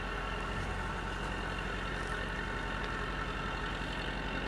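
Natural gas compressor station running with a steady hum made of several fixed tones, unchanging in pitch and level.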